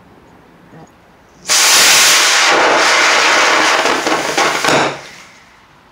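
Small black-powder model rocket motor firing in a static test: it ignites suddenly about one and a half seconds in, burns with a loud, steady hiss for about three seconds, then sputters and dies away.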